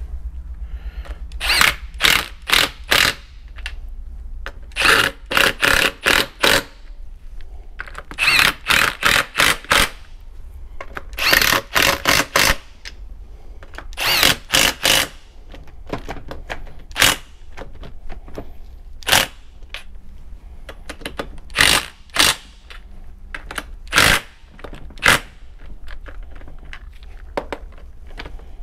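A cordless power driver runs in the 10 mm bolts of a transfer case tail housing in short, loud bursts. The bursts come in quick groups of four to six, one group per bolt, through the first half. Later they come singly every couple of seconds, as the bolts are snugged down.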